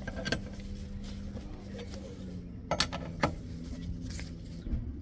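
Metal clinks of an L-shaped wheel brace's socket on a steel wheel's nuts as they are turned: a sharp click about a third of a second in, a quick pair and another near three seconds, and one more past four seconds, over a steady low hum.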